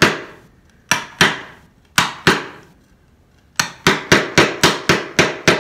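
Wooden mallet striking a chisel, chopping waste out of a dovetail socket in a drawer side. Sharp strikes come in pairs about a second apart, then after a short pause a quick run at about four strikes a second near the end.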